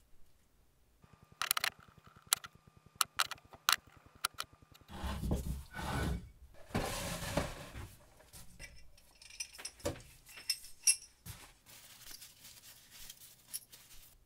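Small metal vise parts clinking against a jar and each other, with a few seconds of sloshing in the middle as they are lifted out of the cleaning liquid. After that comes rag rubbing with light clinks.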